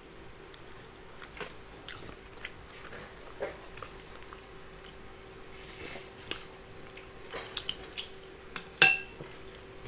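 Close-up eating sounds of baked green-lipped mussels: scattered small clicks and taps of the half shells being handled and scraped, with quiet chewing. One sharp, ringing clink near the end is the loudest sound.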